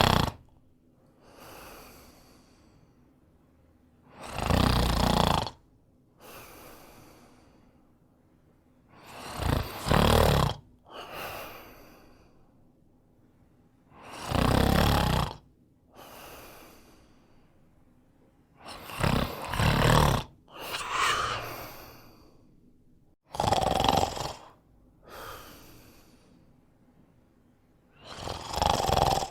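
A man snoring: a loud snore on each breath in, followed by a quieter breath out, repeating about every five seconds.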